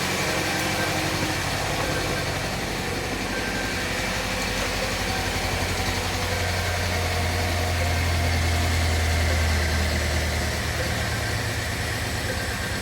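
Volvo XC90 PHEV's 2.0-litre four-cylinder petrol engine idling cold and running rough with a misfire, with a steady low drone that grows louder about six seconds in and then eases.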